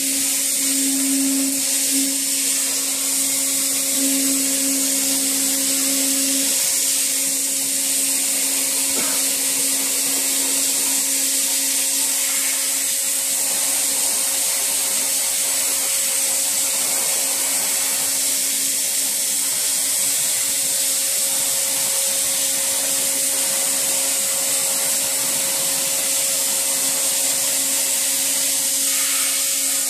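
Oxy-fuel cutting torch on a CNC torch table, hissing steadily as it cuts steel plate, with a steady low hum underneath.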